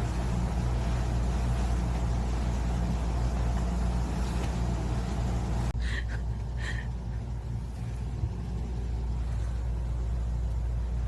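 Steady low rumble of a moving vehicle heard from inside. About halfway through, two short high beeps sound just under a second apart.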